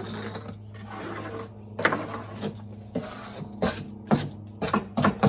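A hand tool scraping soiled chicken bedding and droppings off the wooden boards of a chicken coop: a few longer scrapes, then a quicker run of sharp scrapes and knocks in the second half, over a steady low hum.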